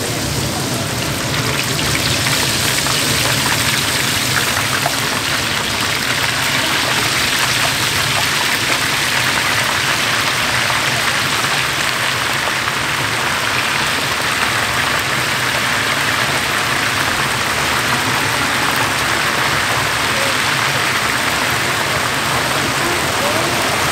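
Hot frying oil in a large wok sizzling and bubbling hard as handfuls of rice-flour-battered mini blue crabs are dropped in. The hiss grows louder a second or two in, as more go into the oil, and then holds steady.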